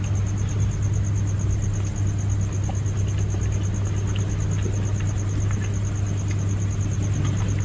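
A steady low hum runs under a fast, even, high-pitched pulsing trill, with a few faint clicks.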